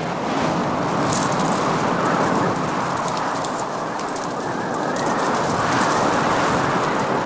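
Strong desert wind blowing through a sandstorm, a dense steady rushing noise that swells a little near the end.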